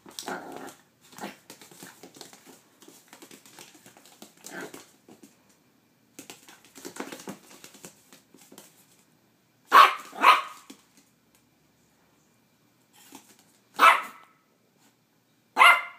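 Silky-poo (silky terrier–poodle cross) puppy barking at an ice cube it is scared of: quieter sounds for the first several seconds, then four short, sharp barks, two close together about ten seconds in and two more near the end.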